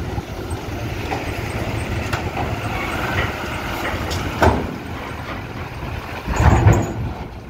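Loaded Tata diesel truck's engine running steadily as the truck drives slowly over the ferry's steel loading ramp. There is a sharp knock about halfway through and a heavy thump with a clatter near the end as the wheels go over the ramp plates.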